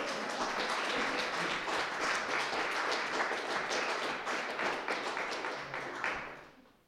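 Audience applauding, a dense patter of hand claps that dies away in the last second.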